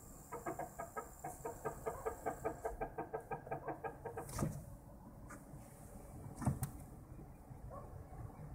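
Second-generation Toyota Prius brakes making a rhythmic squawking squeak, pulsing about four times a second. It stops about four seconds in, two sharp clicks follow, and the pulsing starts again near the end.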